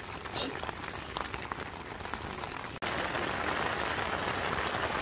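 Heavy rain drumming steadily on the fabric of an REI tent, heard from inside the tent. It gets abruptly louder about three seconds in.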